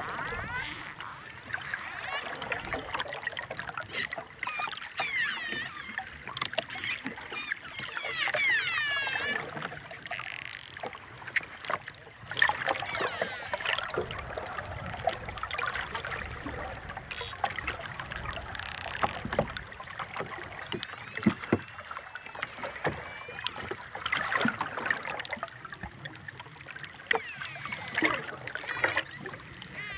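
Dolphins heard underwater through a hydrophone: many overlapping whistles gliding and wavering up and down in pitch, mixed with sharp clicks, over a steady underwater hiss.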